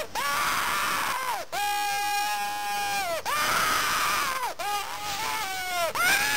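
Homemade puppeteer's whistle, a paper strip held taut between two ice-cream sticks, blown by mouth so that the paper reed vibrates. It gives loud, wailing cat calls, about five in a row with short breaks between, each bending up and down in pitch.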